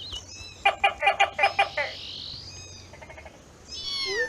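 A house gecko (cicak) chirping, a quick run of about seven sharp clicks in just over a second. Near the end comes a falling, meow-like call.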